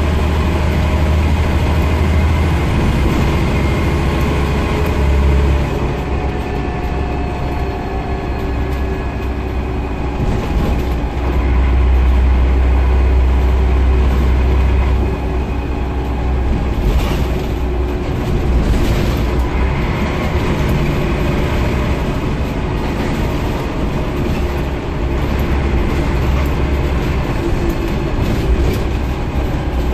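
Scania CN94UB Omnicity single-deck bus on the move, heard from inside the saloon: a deep diesel engine drone that swells and eases several times as the bus pulls and lifts off, over steady road noise. Knocks and rattles from the bodywork come in briefly near the middle.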